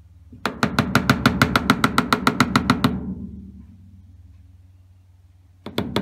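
A rapid, even run of sharp clicks, about eight a second for some two and a half seconds, over a low hum. Two more clicks come near the end.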